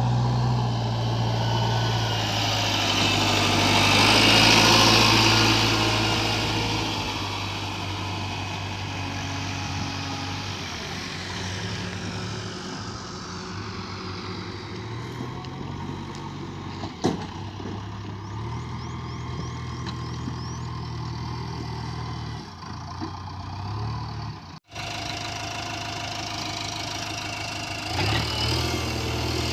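Diesel engine of a JCB 3DX backhoe loader running, its revs stepping up and down as it works. A louder hiss swells and fades a few seconds in, there is a single sharp click past the middle, and the sound breaks off for an instant near the end.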